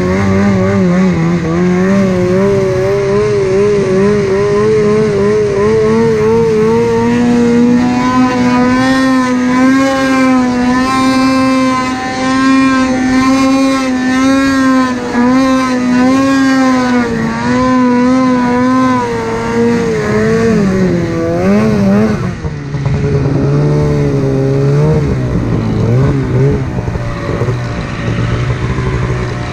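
Snowmobile engine at high revs on an uphill pull, its note climbing over the first several seconds and holding high with small wavers. About two-thirds of the way through the throttle comes off and the engine drops to a lower, uneven run.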